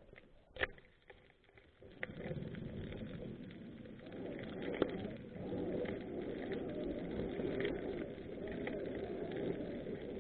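Birds cooing over and over, a dove-like call, starting about two seconds in after a couple of sharp clicks.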